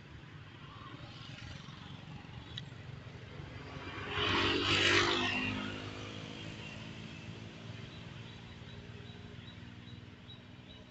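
A motor vehicle's engine passing by, swelling loudest about four seconds in and then slowly fading, over a low steady rumble.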